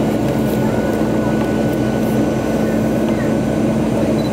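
Boeing 737 cabin noise during the climb after takeoff: the steady drone of the jet engines and rushing air, with a steady low hum and a faint higher whine running through it.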